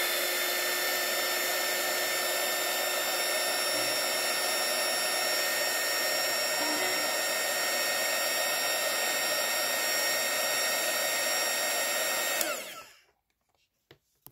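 Small handheld craft heat tool (a mini heat gun) blowing hot air to dry fresh paint-pen paint: a steady fan whine with rushing air that comes up to speed at the start, then is switched off near the end and spins down with falling pitch.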